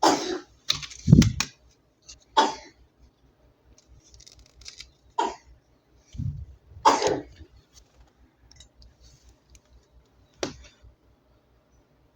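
Plastic toy parts and packaging handled close to the microphone: irregular clicks and knocks, several in the first few seconds and then sparser, the loudest with a dull thump about a second in.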